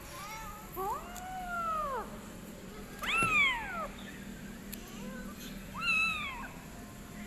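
Young kitten meowing, about four high mews that each rise and then fall in pitch, the loudest about three seconds in.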